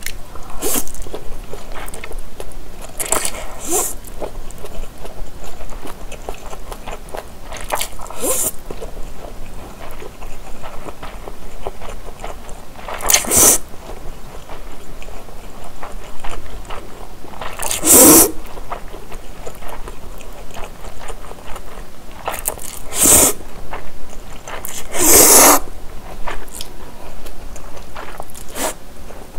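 Close-miked chewing of japchae, glass noodles with vegetables, with wet mouth sounds and a few louder noodle slurps, the loudest about 18 and 25 seconds in.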